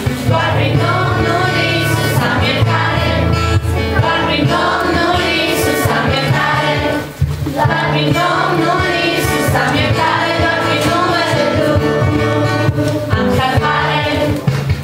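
A group singing a Christian worship song in Romanian over instrumental accompaniment, with a brief break about halfway through.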